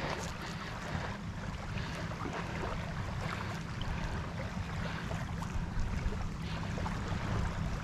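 Steady wind on the microphone over water lapping against a boat, with faint small splashes.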